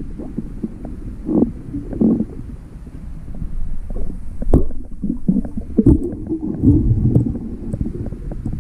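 Muffled underwater sound picked up by a submerged camera: a steady low rumbling and sloshing of water stirred by a person wading and moving a spear, with a few sharp clicks or knocks near the middle.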